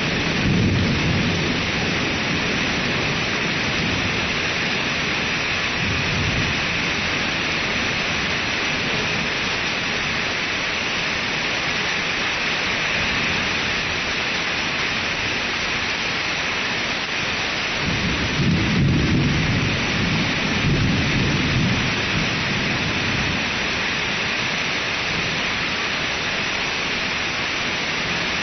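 Steady rain hiss through a thunderstorm, with rolls of thunder rumbling: a short one near the start, a faint one a few seconds later, and a longer, louder roll about two-thirds of the way through.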